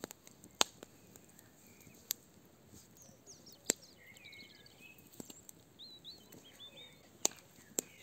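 Wood fire burning in a barbecue, with about half a dozen sharp crackling pops spread through, the loudest about half a second and three and a half seconds in. Birds chirp in short rising and falling calls through the middle.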